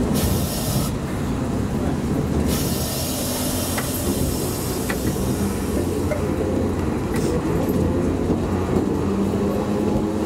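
Iyotetsu Moha 50 streetcar running on street track, a steady rumble of wheels and motor, with high hissing from the wheels on the curve twice in the first few seconds.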